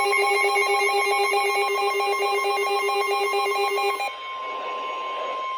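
Emergency Alert System alert tone announcing a severe thunderstorm warning: a loud, fast-pulsing ringing alarm over steady tones. The pulsing alarm cuts off about four seconds in, leaving a fainter steady tone with some hiss.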